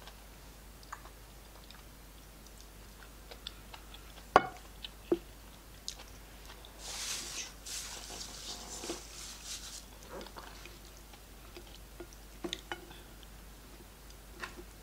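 A person chewing a tough piece of cow leg, with scattered wet mouth clicks and smacks. A sharp click comes about four seconds in, and a longer hissy stretch of mouth noise in the middle.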